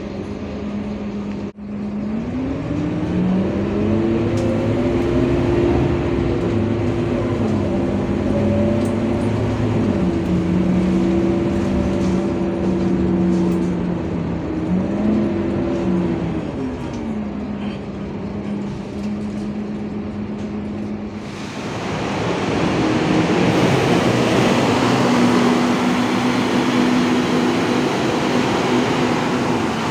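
A Scania diesel city bus heard from inside the passenger cabin. Its steady drivetrain tone rises about two seconds in as the bus pulls away, holds through the drive, and falls back near the middle as it slows. After a cut about two-thirds of the way through, the same bus is heard from outside in a covered interchange: a louder, noisier engine sound as it drives off.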